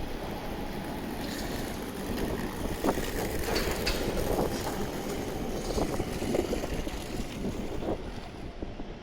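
A vehicle passing: a steady rumble that swells about two seconds in, with scattered sharp clanks, and eases off near the end.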